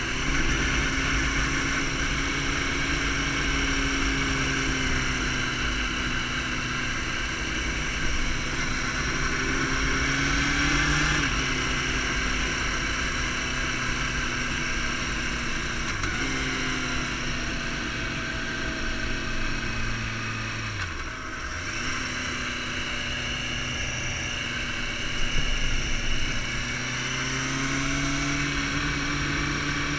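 Sport motorcycle engine running at road speed, its pitch climbing slowly as it pulls and dropping suddenly three times at gear changes or when the throttle closes, with a deep dip and recovery about two-thirds of the way through. A steady rush of wind runs underneath.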